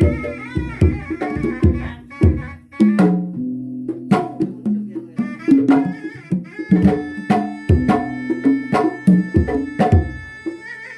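Sundanese pencak silat accompaniment (kendang pencak): hand drums beat a busy rhythm under a sustained, bending reed melody from a terompet.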